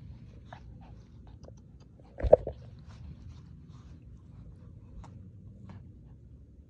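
A dog at play, mouthing and chewing with scattered small clicks and scuffs, and one brief louder sound about two seconds in.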